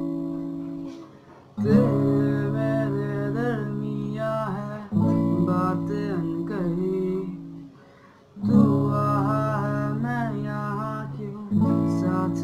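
Acoustic guitar chords strummed and left to ring, a new chord struck about every three and a half seconds, with a man singing a Hindi song over them.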